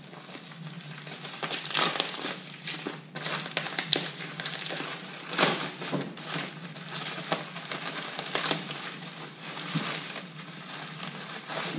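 Plastic bags and packing wrap crinkling and rustling as hands rummage through a cardboard box, in irregular crackles with louder rustles about two and five seconds in.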